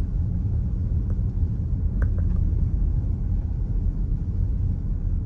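Steady low rumble of a 2018 Dodge Durango being driven on snowy roads, heard from inside the cabin, with a few faint clicks about two seconds in.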